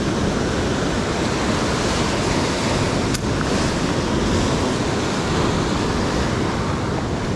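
Ocean surf surging and washing over sea rocks, a steady rush of white water, with wind buffeting the microphone.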